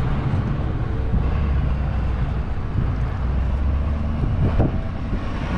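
Steady low road rumble of a vehicle under way: engine and tyre noise at cruising speed, with no change through the stretch.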